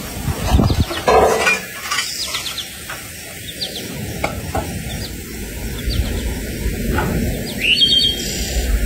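A metal shovel scraping and knocking in ash and embers within the first second and a half, then faint bird chirps.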